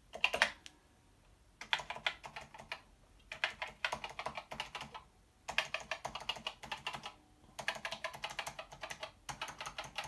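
Keys on the numeric keypad of a Commodore PET 8032 business keyboard being pressed one after another to test them, in quick runs of clicks separated by short pauses.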